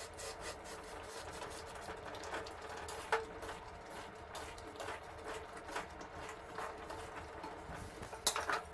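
Faint scraping and clinking of a metal spatula stirring semolina into vegetables in a kadhai, making upma, with a sharper clink about three seconds in and a couple more near the end.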